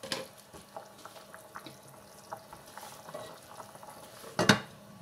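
Pork or chicken adobo simmering in its sauce in a pot, with small scattered pops and crackles as the sauce boils down. About four and a half seconds in, a glass pot lid is set on the pot with a loud clank.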